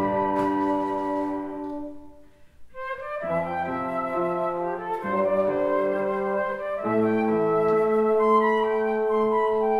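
Chamber ensemble of two flutes, trombone and piano playing. A held chord dies away about two seconds in, and after a brief pause the players come back in with sustained chords led by the flutes.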